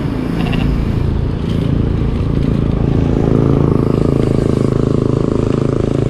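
A motor vehicle's engine running close by on the road, a steady low hum that grows louder about two seconds in and holds.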